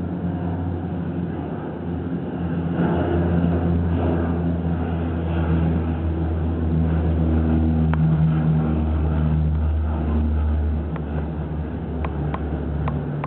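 Airliner taking off and climbing away: a steady low engine drone with a hum that swells over the first few seconds and holds. A few short faint clicks near the end.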